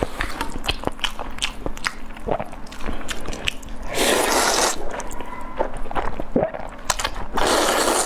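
Close-miked eating of saucy noodles: two long, loud slurps, about four seconds in and again near the end, with wet chewing and mouth clicks between them.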